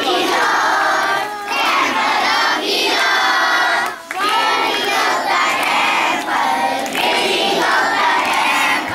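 A large group of children singing loudly together in unison, phrase by phrase, with short breaks between the lines.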